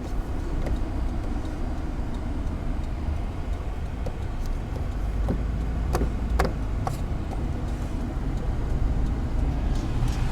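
Steady road and engine noise heard from inside a moving car's cabin, with a few faint clicks a little after the middle.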